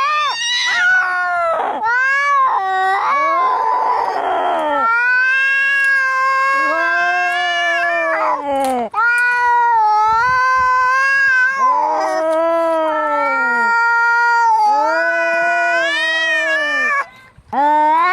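Angry cats caterwauling in a fight: long, drawn-out, wavering yowls that rise and fall in pitch, one after another, with a harsh, noisy cry about four seconds in and a brief gap near the end.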